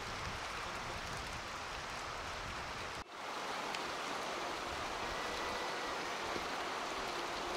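Steady hiss of water from an outdoor hot-spring pool, with a brief drop in level about three seconds in.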